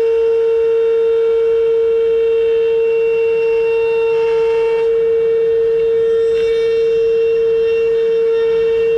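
CNC router spindle running at a constant high speed with a loud, steady whine, while higher-pitched cutting tones shift as the bit works the wood, dropping out about five seconds in and returning a little later.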